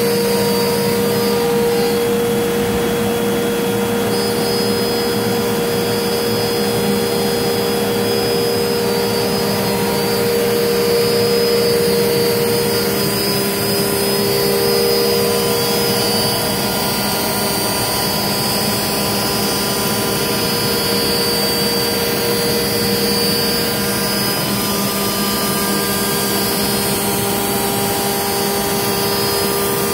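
Limtech Centaurus CNC router cutting ABS sheet: a steady spindle whine of several tones over the rush of its dust extraction, with the tones shifting slightly now and then.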